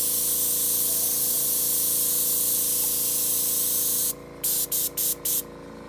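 Airbrush blowing a steady stream of air onto wet alcohol ink, spreading and drying it, over a steady low hum; about four seconds in the airflow stops and comes back as several short puffs.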